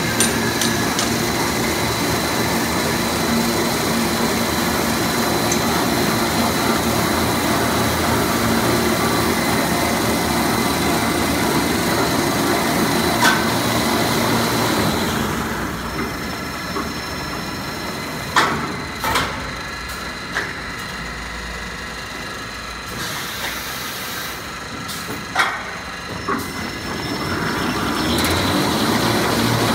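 Toilet-paper and kitchen-towel rewinding machine with embossing and glue-lamination units running: a steady mechanical hum with a thin high whine. About halfway it turns quieter until near the end, with a few sharp clicks and knocks.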